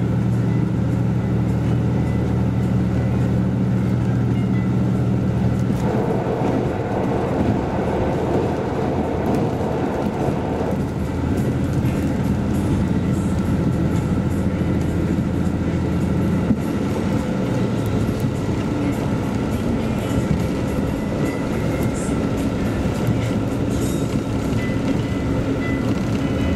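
KiHa 185 series diesel railcar running at speed, heard from inside the carriage: a steady engine drone with wheel and rail noise. About six seconds in the drone falls back and a mid-pitched rumble stands out for about five seconds before the running noise settles.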